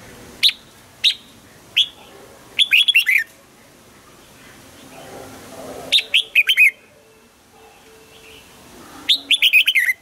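Red-whiskered bulbul singing: three short single notes, then three quick warbled phrases of clear whistled notes a few seconds apart.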